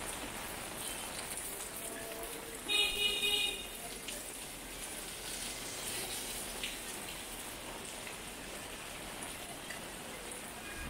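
Steady rain falling on a wet street. About three seconds in, a vehicle horn honks briefly, the loudest sound here.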